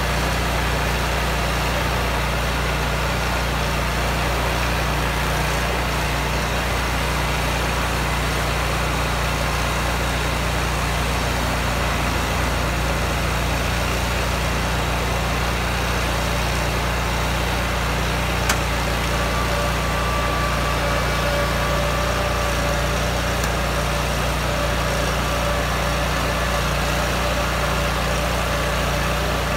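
Walker riding mower's engine running steadily while its high-dump grass catcher is lifted. A faint whine comes in about two-thirds of the way through.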